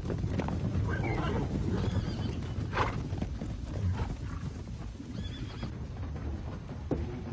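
A herd of horses galloping over dry dirt: a dense, continuous drumming of many hooves, with neighs breaking out over it several times.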